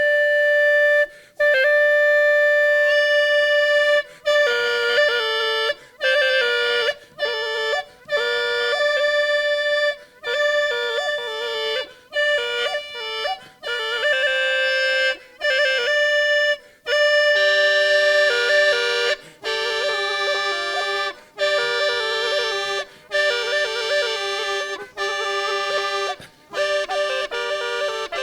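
Hulusi, the Chinese gourd free-reed flute, playing a melody over a steady drone note, with short breaks for breath every second or two. A lower held note joins about halfway through.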